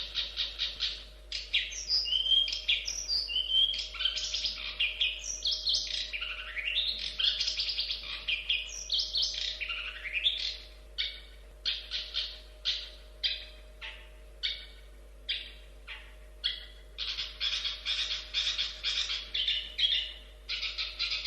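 Long-tailed shrike (cendet) singing a varied, loud song. It opens with a fast run of short repeated notes, moves into whistled glides and rising sweeps, then gives a string of spaced rising notes. Near the end it breaks into another fast chattering run.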